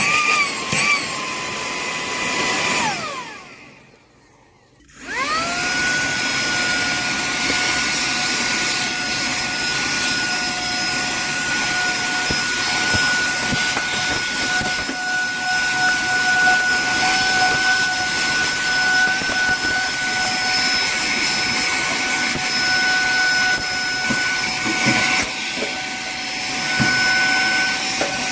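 Cordless handheld vacuum cleaner running with a steady motor whine and rushing air. About three seconds in it winds down and stops. After a second or two of quiet it spins back up to a steadier, higher-pitched whine.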